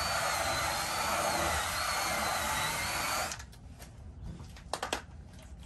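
Power drill spinning a round scrub brush against a carpet floor mat, a steady whine that cuts off about three seconds in. A few sharp clicks follow near the end.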